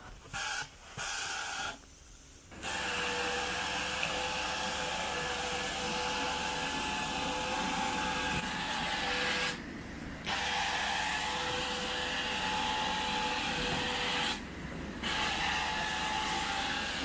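Carpet extraction wand drawn across carpet: steady vacuum suction with a hiss of spray. Two short bursts in the first two seconds, then continuous, dropping out briefly twice.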